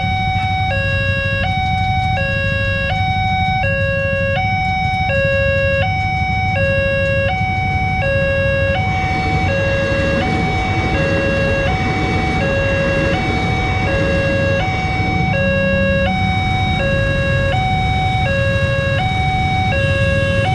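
Railway level-crossing alarm sounding a steady alternating two-tone signal, warning that a train is coming. From about nine seconds in, the running noise of a passing passenger train rises beneath it.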